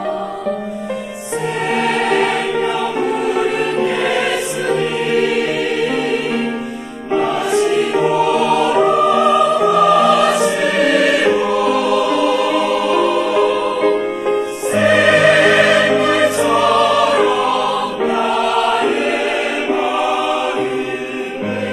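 Mixed church choir singing a Korean hymn in parts, holding long chords that change every second or two; a deep bass note comes in about two thirds of the way through.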